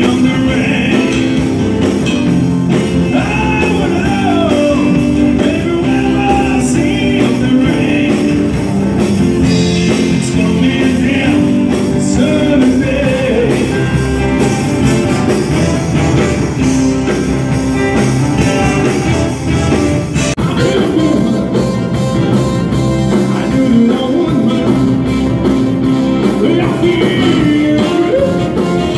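Live rock band playing: electric guitar and drums under a man singing lead vocals, echoing in a large hall.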